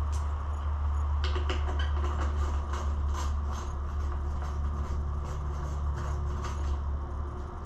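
Ratchet wrench clicking in quick runs as it loosens the single 8 mm bolt holding the motorcycle seat, over a steady low hum.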